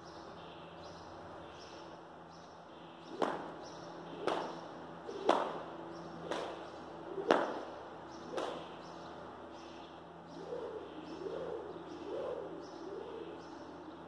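Six sharp smacks about a second apart, each echoing in the building, followed by a softer wavering sound that rises and falls several times.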